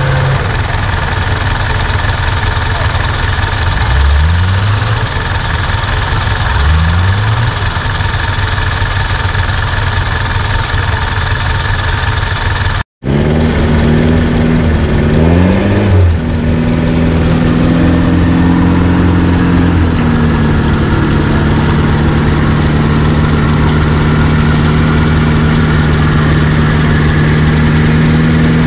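Off-road 4x4 engines working in deep mud, with two short rising revs in the first half. After an abrupt cut about 13 seconds in, an engine revs up and down a few times, then holds a steady speed.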